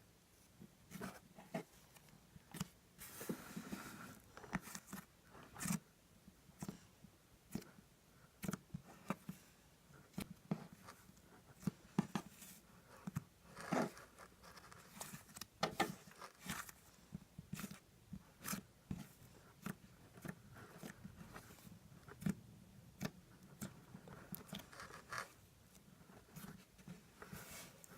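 Butter slime being squished and stretched by hand: irregular sticky clicks and pops with soft squelching, several times a second.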